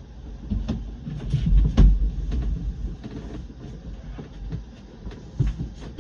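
Irregular knocks and clicks over a low rumble, with a heavier thump about two seconds in.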